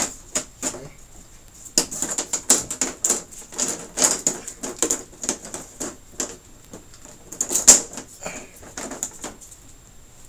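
Plastic clips and frame pieces on the edge of an LCD TV panel clicking and rattling as they are worked loose by hand, in irregular runs of quick sharp clicks with one louder snap near the end.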